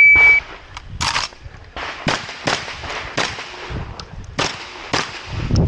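Shot timer start beep, one steady high tone for about half a second, followed by a string of shotgun shots fired about every half-second to second, as an IPSC shotgun stage is shot.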